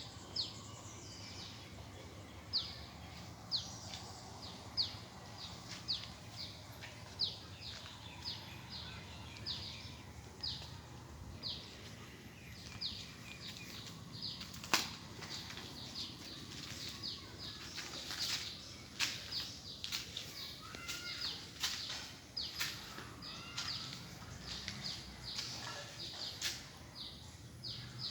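A bird calling the same short, high chirp over and over, roughly once or twice a second. A few sharp clicks fall in the second half.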